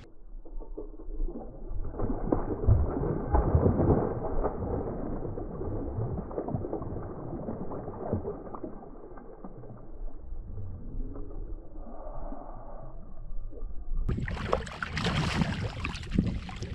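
Water splashing and sloshing beside a fishing kayak as a hooked bass thrashes at the surface, with small knocks against the hull. It is muffled and dull for most of the time, then turns brighter and clearer about three seconds from the end.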